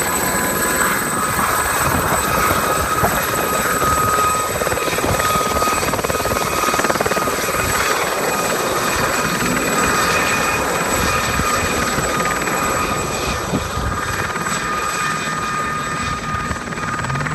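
Aérospatiale Gazelle SA 342M helicopter, with its Astazou turboshaft and fenestron ducted tail rotor, lifting off and flying away. Steady rotor noise with a high whine throughout, growing a little fainter and duller near the end as it departs.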